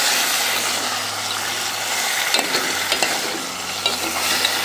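Fish pieces and green chilli paste sizzling in a metal pot on a gas stove while a metal spoon stirs them, clinking and scraping against the pot a few times.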